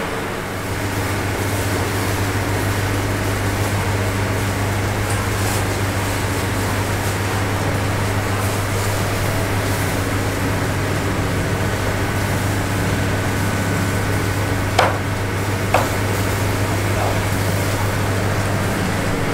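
Steady machine hum with an even hiss, like a fan or distant traffic, and two sharp clicks a second apart near the end.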